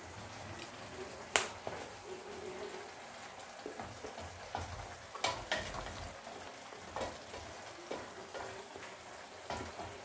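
Petchay-and-tofu stew simmering in a metal wok, with a steady bubbling hiss. A wooden spatula stirs it, knocking against the wok several times; the sharpest knock comes about a second and a half in.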